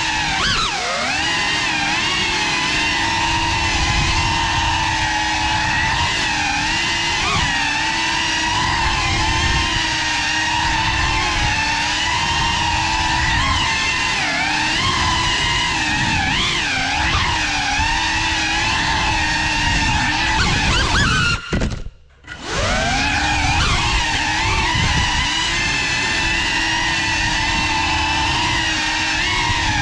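Small FPV drone's electric motors and propellers whining in flight, several tones rising and falling together with the throttle. About two-thirds of the way through, the sound drops out almost completely for about a second, then the whine sweeps back up.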